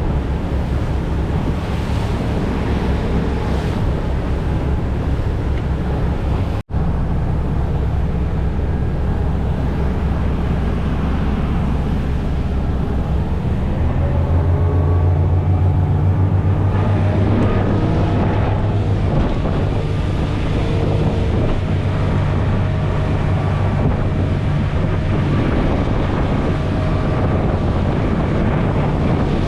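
Small motorboat under way: its engine running steadily, with wind buffeting the microphone and water rushing past the hull. The engine gets louder about halfway through, and the sound cuts out for an instant about seven seconds in.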